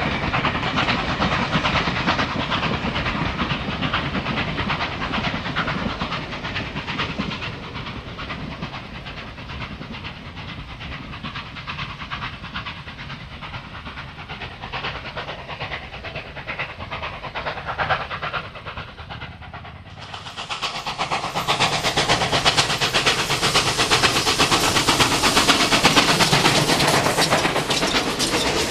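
NSW 59 class 2-8-2 steam locomotive 5910 working a long passenger train, its exhaust and rolling carriages fading as it draws away. About twenty seconds in, the sound cuts abruptly to a louder, close-up run of a steam locomotive's wheels and rods on the rail.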